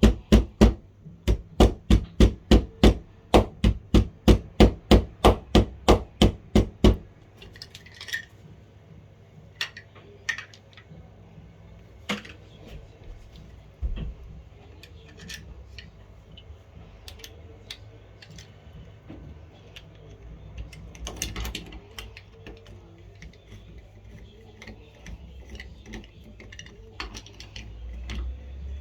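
A hammer tapping rapidly and steadily on a metal door-lock part to flatten it, about three blows a second, stopping about seven seconds in. After that come scattered small clicks and knocks as the lock and handle parts are handled.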